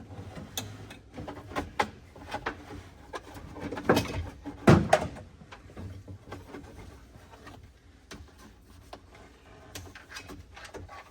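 Scattered clicks, rattles and knocks of hand tools and loose interior parts being worked under a car's dashboard, with two louder knocks close together about four seconds in.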